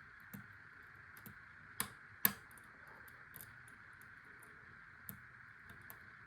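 Light scattered clicks and ticks of a lock pick working the pin stacks of an ASSA 500 pin-tumbler lock, with two sharper clicks about two seconds in, over a steady faint hiss.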